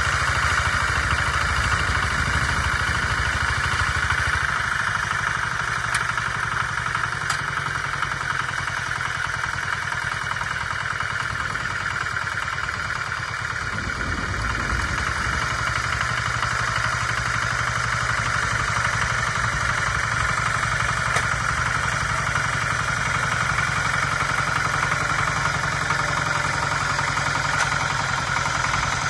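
Kentavr МБ 1010ДЕ-6 walk-behind tractor's single-cylinder diesel engine running steadily under load as its rotary tiller churns wet soil. The engine note dips slightly about halfway through and then picks up again.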